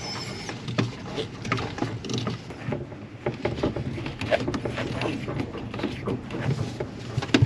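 Scattered light clicks and knocks of hands working with pipework and fittings, over a low steady hum.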